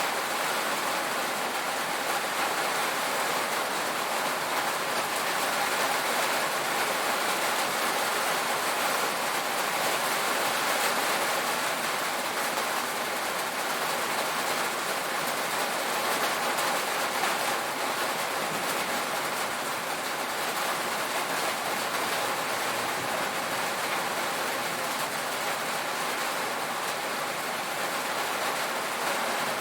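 Steady heavy rain drumming on a tin roof, an even hiss of drops without a break.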